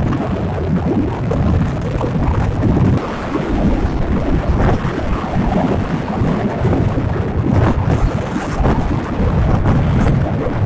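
Wind buffeting the microphone of a camera on a moving vehicle: a loud, rough, uneven rumble mixed with road noise.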